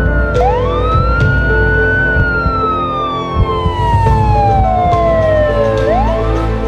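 Emergency vehicle siren wailing. It sweeps quickly up in pitch, then falls slowly over about four seconds, and starts rising again near the end, over a steady low rumble.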